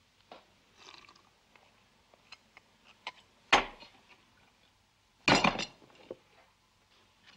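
Breakfast tableware at work: small clicks and clinks of china and cutlery, a sharp knock about halfway through, and a short burst of louder clattering strokes about two seconds later.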